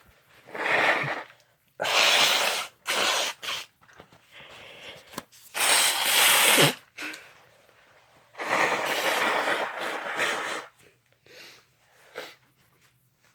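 A person sneezing repeatedly: several loud, noisy sneezes one after another, with short quiet gaps between them and one longer burst of about two seconds near the end.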